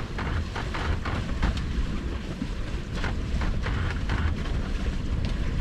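Wind buffeting the microphone on the deck of a sailboat under sail, with water rushing and splashing along the hull at irregular moments.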